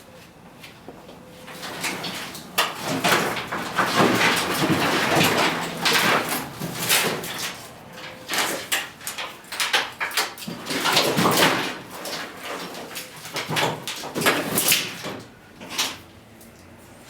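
Car wiring harness being dragged out of the body shell: irregular rustling, scraping and clattering of bundled wires and plastic connectors against metal, in uneven pulls from about two seconds in, easing off near the end.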